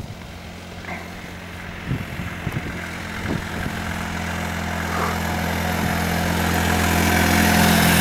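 Small microcar's engine running steadily as the car approaches and passes close by, growing louder throughout.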